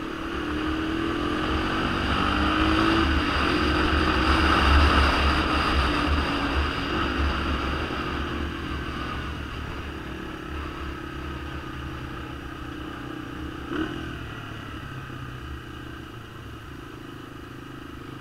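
Honda ATC 250SX three-wheelers' single-cylinder four-stroke engines running under way over rough ground, with a low rumble throughout. The sound builds over the first five seconds and then gradually eases off. A single knock comes about fourteen seconds in.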